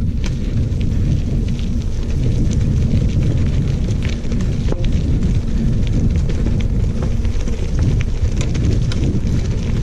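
Wind noise buffeting the microphone of a camera moving along a gravel trail, a loud steady rumble, with scattered crackles and pops from the loose gravel of the path.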